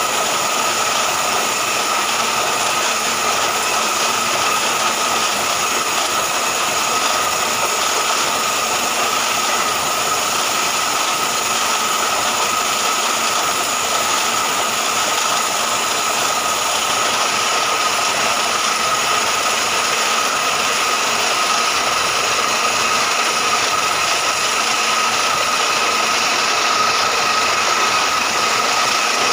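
Mini portable borewell drilling machine running steadily while drilling, with a continuous mechanical rattle and a steady high whine.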